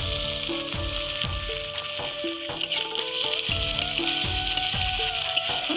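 Sliced onion and garlic sizzling steadily in hot oil in a metal kadai, just after being tipped in. Background music with a steady beat plays over it.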